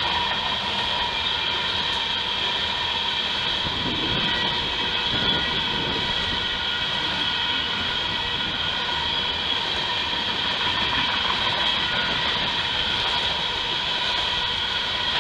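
Freight train of hopper cars rolling steadily past a grade crossing: continuous rumble and clatter of the cars, with steady high-pitched tones over it.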